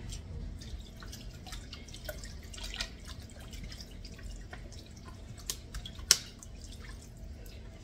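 Water poured from a plastic bottle into a pan of chicken and seasoning, trickling and dripping. A few light clicks come through, the sharpest about six seconds in.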